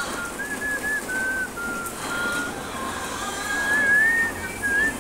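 A person whistling a tune: a wavering melody of held notes and small slides, over a faint steady hiss.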